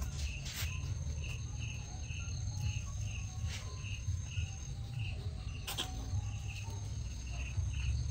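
An insect, cricket-like, chirping steadily at about two to three chirps a second, over a faint high steady whine and a low rumble, with a few faint clicks.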